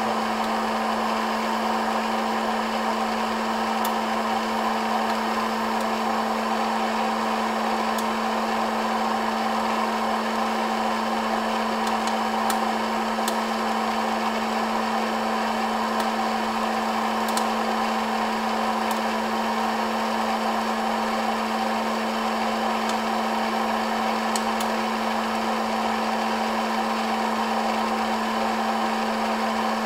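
Hot-air popcorn popper roasting coffee beans: a steady fan-and-heater whir with a constant motor hum. A few faint, sharp clicks are scattered through it, the beans popping in first crack.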